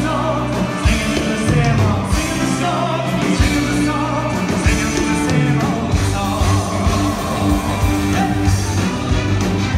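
Live band playing with a singer: steady bass and drums under a sung vocal line, loud and continuous.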